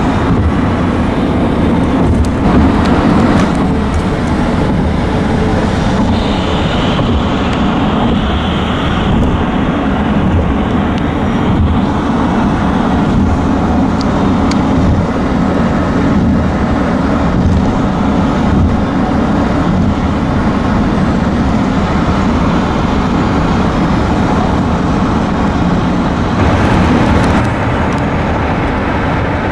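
Steady running rumble of a moving vehicle, heard from on board, with a few faint clicks.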